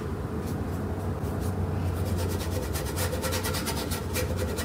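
Paintbrush scrubbing acrylic paint onto a canvas in quick repeated strokes, sparse for the first couple of seconds and then coming thick and fast, over a steady low hum.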